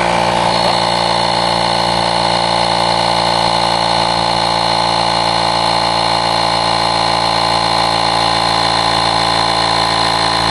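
AUXITO A501 cordless portable tire inflator's compressor running steadily, pumping up an electric bike's front tire toward a 30 psi preset. A thin high whine joins the steady buzz about half a second in.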